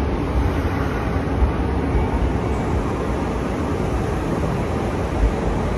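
Steady rumbling ambience of a busy railway station, with a couple of brief low bumps.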